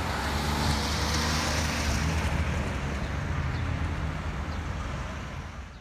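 Busy road traffic: a steady low engine rumble with the tyre noise of passing vehicles. A hiss is loudest in the first couple of seconds, and the noise eases slightly toward the end.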